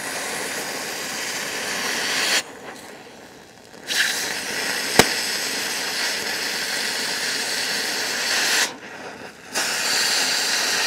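Cutting torch hissing steadily as it cuts through galvanized steel pipe, dropping away twice for a second or so. One sharp pop about 5 s in, the galvanized coating popping and spitting under the flame.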